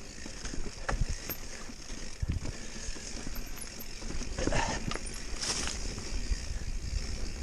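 Scattered knocks, clicks and scuffs of a mountain bike and footsteps on a rocky trail, with two short hissing scrapes a little past the middle.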